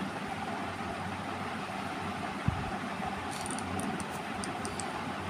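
Steady background hum or rush with no pitch changes, broken by one soft thump about two and a half seconds in and a few faint light clicks near the end.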